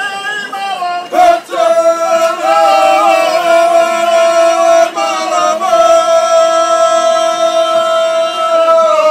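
A mixed group of folk singers singing ojkavica, the traditional unaccompanied Dalmatian hinterland style. The voices hold long, steady notes together, break off briefly about a second in, and slide steeply down in pitch at the very end of the phrase.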